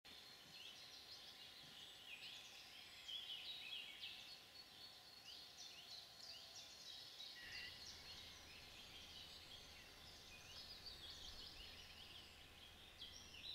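Faint chorus of several songbirds singing at once, a busy overlap of short high chirps and trills.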